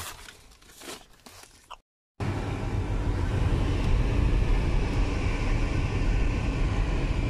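Faint plastic-bag rustling, then after a short cut to silence about two seconds in, the steady low rumble of a car's engine and road noise heard from inside the car.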